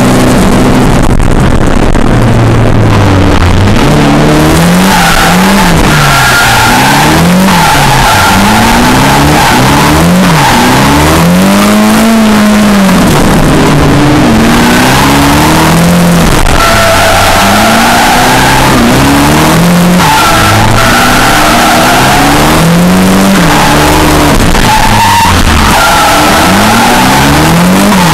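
Drift car engine heard loud from inside the cabin, revving up and falling back again and again under throttle and gear changes. Long stretches of tire squeal run through it as the car slides through the corners.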